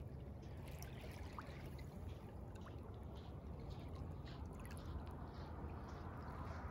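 Small waves lapping onto a sandy, pebbly shore and fizzing as the water washes over the sand and stones, over a steady low rumble.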